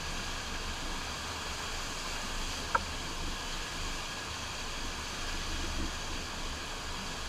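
Steady rush of water from a FlowRider sheet-wave machine, with water pumped up and over the padded slope. A single short sharp click cuts through it nearly three seconds in.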